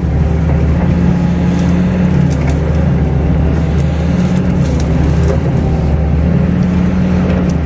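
Kato HD512 excavator's diesel engine running steadily, a deep drone with a few faint clicks over it.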